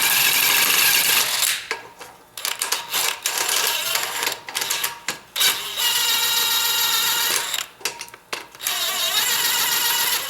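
Power tool spinning in bursts of one to two seconds as a motor-mount bolt is backed out of the engine mount; one longer run near the middle carries a steady whine.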